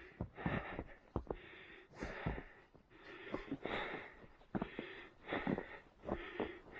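A runner's heavy, rhythmic breathing, the breaths coming in an even series, with the crunch of footsteps in snow mixed in.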